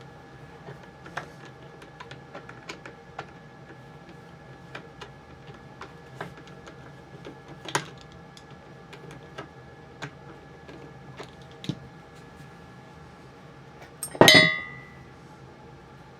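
Small clicks and scrapes of hand work on the rifle's butt plate and stock. About 14 seconds in comes one loud metallic clank that rings briefly, a steel part set down or dropped on a hard surface.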